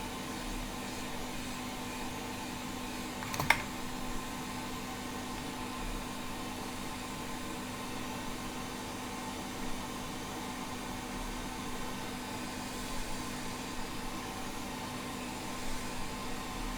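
Hot air rework station blowing steadily at about 60% airflow, heating a hard drive circuit board to melt the solder under its SATA connector. A single sharp click about three and a half seconds in, with a few faint ticks later.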